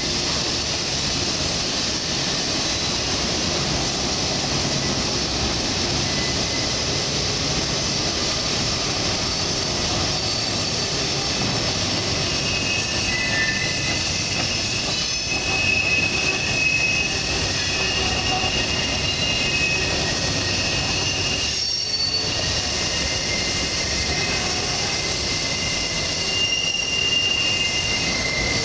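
Freight cars rolling past on a sharp curve: a steady rumble and rattle of wheels on rail, with high wheel-flange squeal from the curve coming and going as thin sustained squeals from about halfway.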